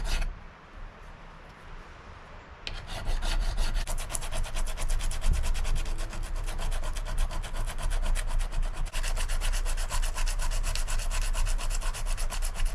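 Hand sanding a knife with sandpaper: a brief rub at the start, then from about three seconds in quick, even back-and-forth strokes, several a second, with no break.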